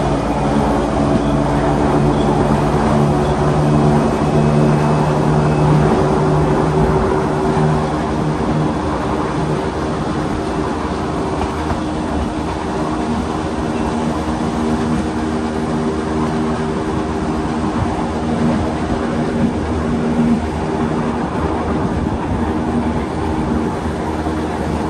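Electric rack-railway train of the Wengernalpbahn running, heard from aboard: a steady hum of several tones over the even rumble of the running train, the hum strongest for the first several seconds.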